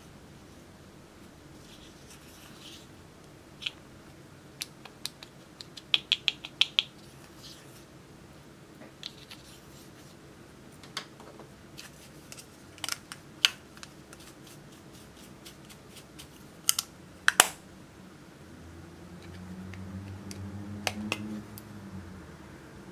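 Toothpick scraping pressed powder and sharp plastic clicks and taps from handling makeup compacts, with a quick run of clicks about six seconds in and the loudest clicks around seventeen seconds in. A low rumble of handling noise comes in near the end.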